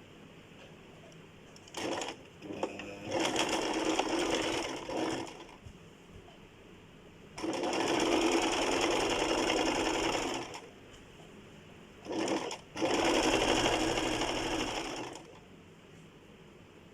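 Electric sewing machine stitching in separate runs: two brief starts about two seconds in, then three longer runs of about three seconds each, with pauses between them.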